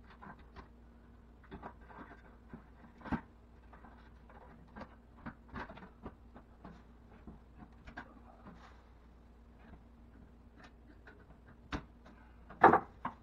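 Scattered light clicks and taps of metal square corner bead being handled and pressed into place against a drywall ceiling soffit. There is a sharper knock about three seconds in and a louder short clatter near the end.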